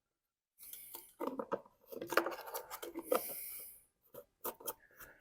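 Close-up handling noises of small parts: rubbing and rustling with light clicks for about three seconds, then a few separate clicks, as fuel line and a fuel filter are worked into a leaf blower's plastic fuel tank.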